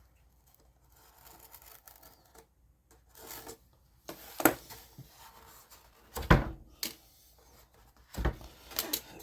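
Handling noises at a workbench: light rubbing and shuffling of wooden model-airplane parts, broken by several sharp knocks and taps as parts or tools are set down, the loudest about six and eight seconds in.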